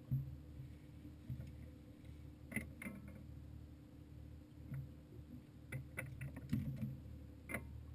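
Scattered knocks and taps on a bass boat's front deck, with short clicks, over a low steady hum; a sharp knock right at the start and another cluster near the end.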